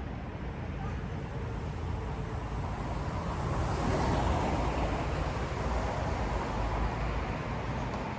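Steady rumble of road traffic, swelling about four seconds in as a vehicle goes by.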